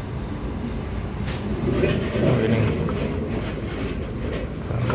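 Steady low rumble of shop background noise with a few light clicks and rustles, a little louder about two seconds in, as Hot Wheels blister cards are handled on a wire display rack.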